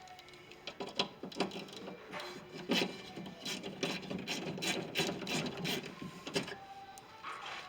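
Hand tools working the window regulator bolts inside a pickup's rear door: a string of irregular metallic clicks and rattles, with a few short squeaks.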